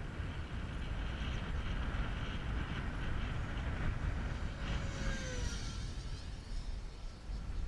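Steady wind rumble on the microphone under the whine of an FMS Super Scorpion electric ducted-fan model jet. The whine's pitch drops about five seconds in as the jet passes.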